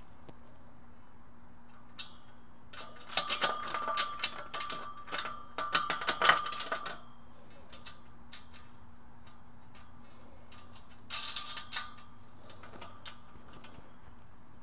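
Galvanized steel carport tubes clinking and rattling against each other with a short metallic ring as a side pole is fitted into an arch bracket. There are two spells of clatter: a longer one about three to seven seconds in and a short one around eleven seconds.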